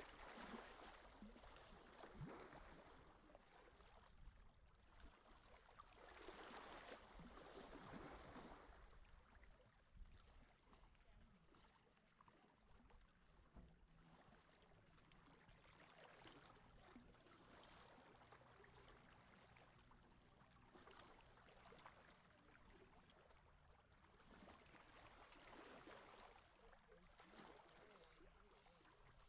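Faint small sea waves washing and lapping at the shore, a soft swell of water noise rising and fading every several seconds, about four times.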